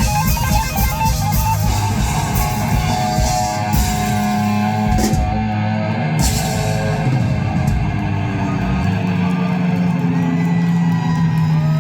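Live rock band playing electric guitars, bass and drums. The dense strumming and cymbals give way about five seconds in to long, held guitar and bass tones, as the song winds down.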